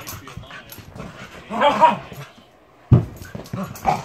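Two dogs wrestling, with scuffling throughout, one pitched call from a dog about a second and a half in, and a sudden thump about three seconds in.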